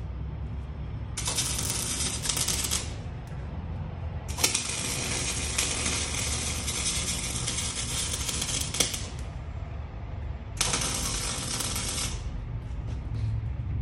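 Electric arc welding on a car's exhaust pipe joint, crackling and spitting in three bursts: a short one about a second in, a long one of about five seconds, then another short one near the end.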